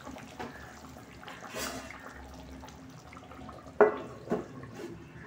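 Curry gravy simmering in a pan with a soft bubbling. About four seconds in, a stainless steel plate is set over the pan as a lid with a sharp metallic clank, followed by a smaller knock.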